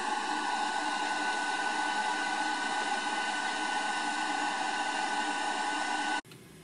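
Hot-air rework station blowing steadily: a hiss of air with a fixed fan whine, cut off abruptly near the end.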